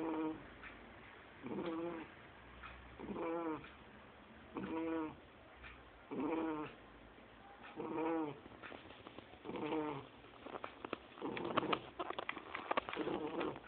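Two-month-old Shar Pei puppy snoring: a pitched, adult-sounding snore with each breath, about every second and a half. Near the end the snores give way to a run of irregular clicking sounds.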